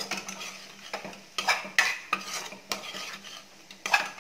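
Spatula stirring and tossing scrambled egg and onion in a metal kadai, scraping and knocking against the pan in irregular strokes, over a light sizzle of frying.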